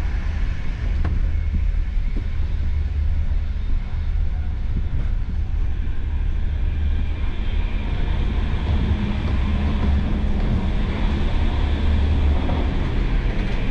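Steady running noise of a Deutsche Bahn Twindexx IC2 double-deck train at speed: a deep rumble under an even hiss, with a low hum coming in for a few seconds past the middle.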